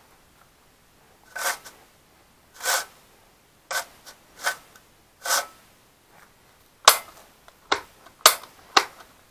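Handling noise from a petrol chainsaw being picked up and moved: five short scraping swishes about a second apart, then four sharp plastic-and-metal clicks near the end.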